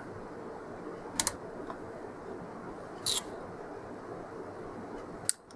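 A few small clicks from the BK Precision 1420 oscilloscope's front-panel knobs and switches being set: a double click about a second in, another about three seconds in, and a sharper one near the end, over a steady background hiss.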